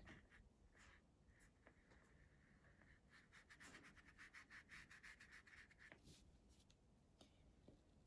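Very faint scratchy brushing of a watercolour brush stroking across paper, with a run of quick short strokes about three to six seconds in.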